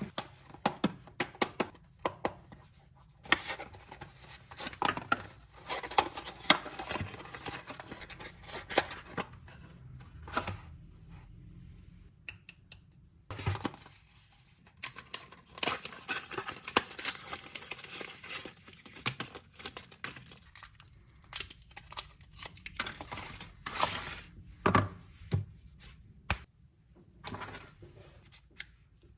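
Vape packaging being opened and handled by hand: tearing and crinkling with many sharp clicks and taps, in several bursts with short pauses.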